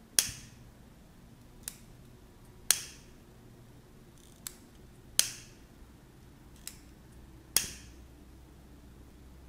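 Handheld pocket lighter being clicked over and over to make a flame. There are four sharp clicks about two and a half seconds apart, with a softer click between each pair.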